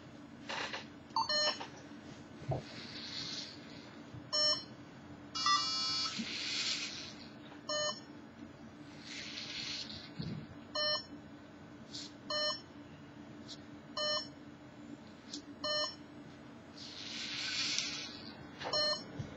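LEGO Mindstorms NXT robot arm at work: short electronic beeps every one to three seconds, with one longer run of tones about five and a half seconds in, between four whirring bursts of about a second each from its geared servo motors as the arm moves.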